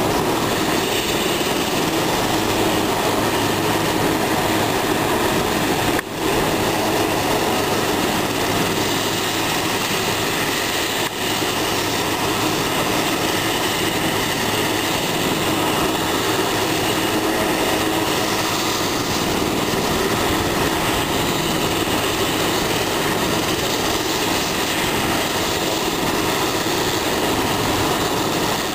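Helicopter running on the ground with its rotors turning: a loud, steady engine and rotor noise with steady tones.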